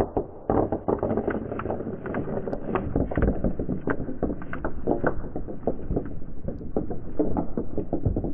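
Marbles and water balloons rolling down a wooden board track: a steady low rumble on the wood with many quick, irregular clicks and knocks as the marbles hit rocks and the side boards. A sharp knock at the very start as the wooden release tray tips.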